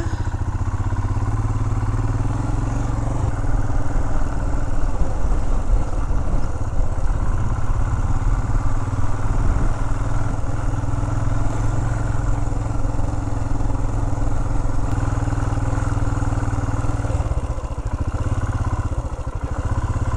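Royal Enfield Himalayan's 411 cc single-cylinder engine running steadily as the motorcycle rides along a dirt track. The engine note dips briefly about three-quarters of the way through, then picks up again.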